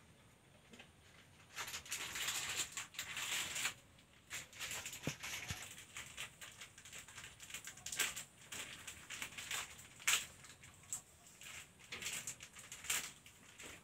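Irregular rustling, crinkling and clicking of things being handled close to the microphone. The sounds start about a second and a half in, with a few sharper clicks among them.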